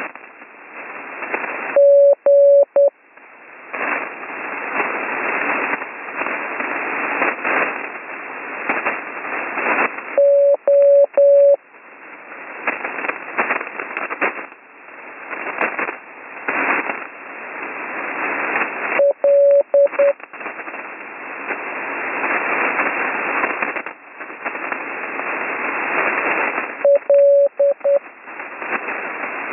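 Morse code (CW) letters sent by hand and heard through an HF amateur radio receiver: a steady single-pitch tone keyed into a few dots and dashes, four letters about eight seconds apart. Between them is loud, surging HF band noise and static, the rough band conditions that came with a lightning storm.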